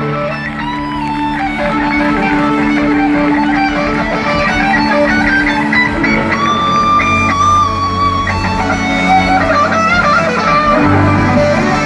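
Live band playing an instrumental passage with guitars strummed and plucked to the fore, with no singing.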